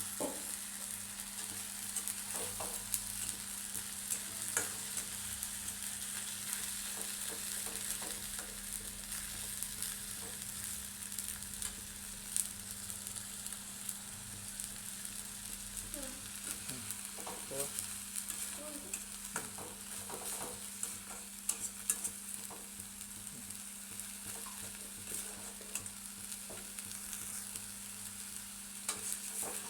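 Food sizzling steadily in hot oil in a pan, stirred at intervals with a utensil that clicks and scrapes against the pan.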